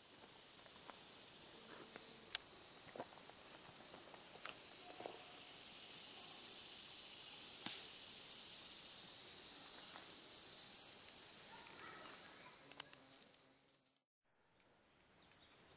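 Steady high-pitched trilling of insects in the forest canopy, with a few faint clicks and rustles of footsteps in leaf litter. About fourteen seconds in it cuts off, and a quieter, lower-pitched insect drone follows.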